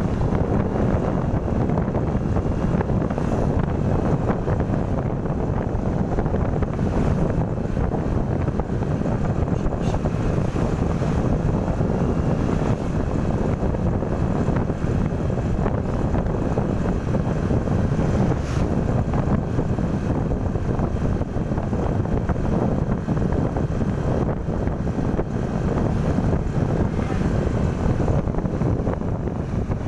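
Steady wind buffeting the microphone over the low rumble of a moving vehicle, with no horn sounding.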